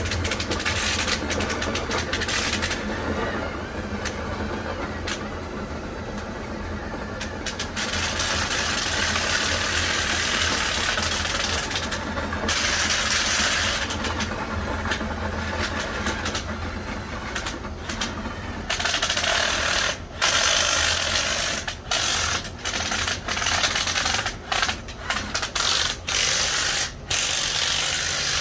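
A drill spinning a dryer vent cleaning brush on flexible rods inside the vent duct: a steady motor whir with the rods and brush scraping against the duct. From about two-thirds of the way through, the drill cuts off and restarts every second or so.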